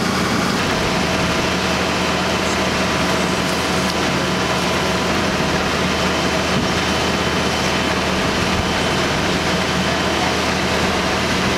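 Fire-service vehicle engines and pumps running steadily: a constant engine drone with a few held hum tones that does not rise or fall.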